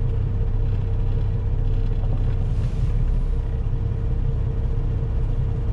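Semi-truck's diesel engine running steadily, a low drone with a constant hum, heard inside the cab.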